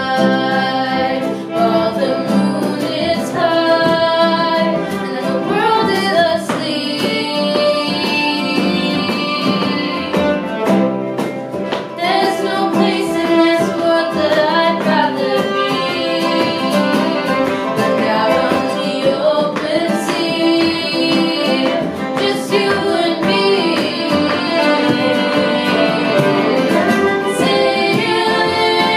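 Two girls singing a song together with long held notes, accompanied by a fiddle and a strummed acoustic guitar.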